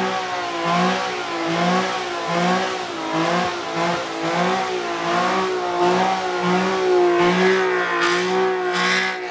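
Car engine held at high revs, its pitch wavering up and down about twice a second.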